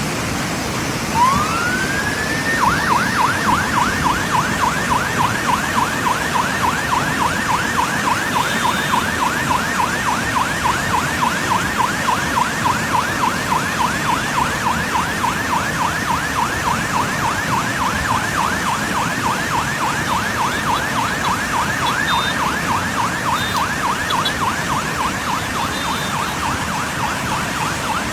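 Emergency vehicle's electronic siren: one rising wail about a second in, then a fast, repeating yelp sweeping up and down several times a second, over road traffic noise.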